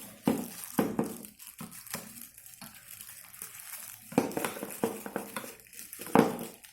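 Plastic packaging rustling and crinkling, with irregular clicks and light knocks, as a tripod's phone holder is unpacked by hand. The louder knocks come about a second in, around four seconds in and just after six seconds.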